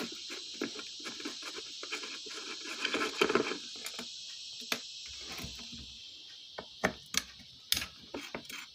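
Irregular small clicks and knocks of hand tools and metal ceiling-fan parts being handled during disassembly, with a few sharper knocks in the second half. A steady high chirring of crickets runs underneath.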